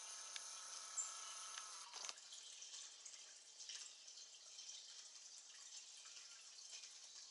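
Faint camcorder zoom motor whirring steadily, stopping with a soft clunk about two seconds in, over quiet outdoor hiss with scattered soft ticks and drips. A short high chirp comes about a second in.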